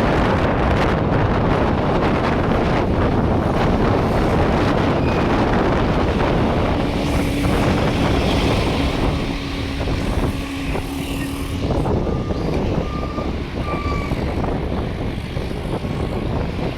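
Bus diesel engine running with a loud, rough growling exhaust, steady for most of the time and easing slightly about nine seconds in.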